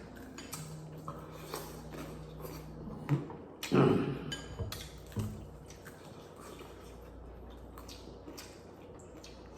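Cutlery and dishes clinking and tapping during a meal: scattered small clicks, with a louder knock about four seconds in.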